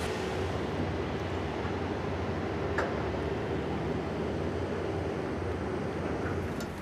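Engines of amphibious pontoon bridging vehicles running steadily on the water, a droning hum over the wash of water, with a single brief knock about three seconds in.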